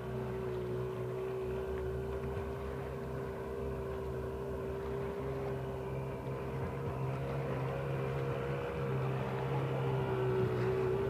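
Addictor jet boat's 1200cc engine running at a steady pitch out on the water, a steady drone that grows louder near the end as the boat comes closer.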